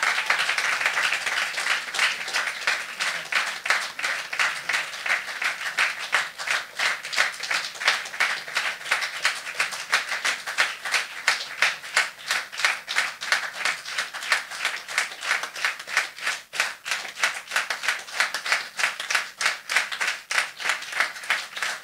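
Audience applause, a dense wash of clapping at first that settles after about six seconds into rhythmic clapping in unison, with an even beat that runs on.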